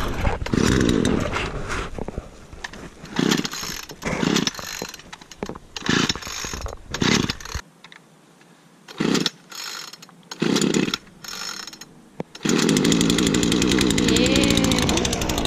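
Gas chainsaw being pull-started: the starter cord is yanked about seven times in short rasping bursts. About twelve seconds in, the engine catches and runs steadily.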